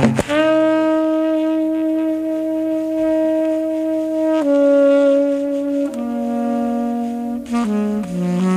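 Music: a slow melody of long held notes, each sustained for one to four seconds before stepping to a new pitch, with quicker note changes near the end.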